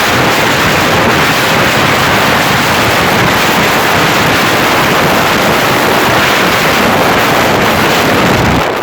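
Honda CBR600RR sport bike's inline-four engine and exhaust running very loud, a dense harsh noise with no clear pitch, which drops off suddenly near the end.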